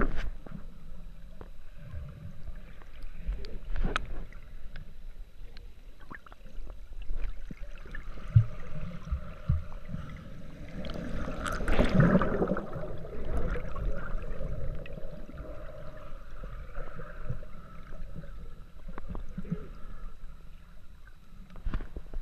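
Muffled underwater water noise: sloshing, gurgling and bubbles with low rumbles and scattered knocks. It swells to its loudest about halfway through as a wave surges in and churns bubbles over the rocks.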